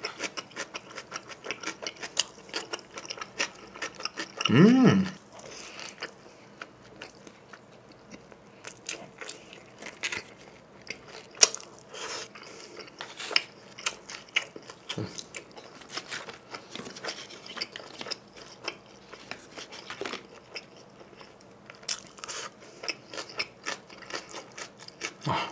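A person chewing mouthfuls of cheese pizza close to the microphone, with wet clicks and smacks throughout. About five seconds in there is one short hum from the eater.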